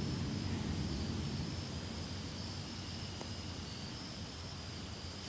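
Low rumble of distant thunder rolling and slowly fading away, over a steady chirring of insects.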